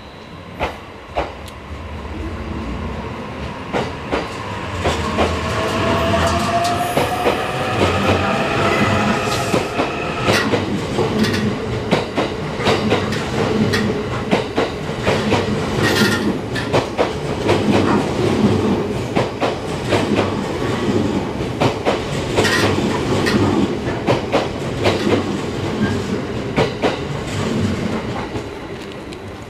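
E653 series electric train pulling out of a station and accelerating past, its motors giving a rising whine over the first ten seconds or so, with a repeated clickety-clack of wheels over rail joints as the cars roll by.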